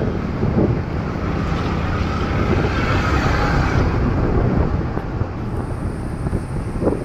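Wind buffeting the microphone over steady road and traffic noise while travelling in a moving vehicle, with a faint wavering tone about halfway through.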